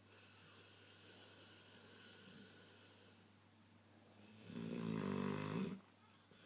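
Dog snoring while wide awake: a faint snoring breath over the first few seconds, then one really loud, drawn-out snore about four and a half seconds in, lasting over a second.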